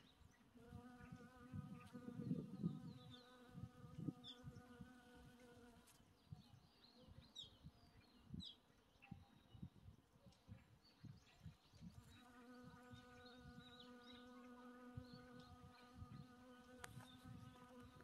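Faint buzzing of a honeybee's wings as it hovers and forages among boxwood flowers, a steady low hum that fades for several seconds in the middle and comes back near the end. Short high chirps sound in the background.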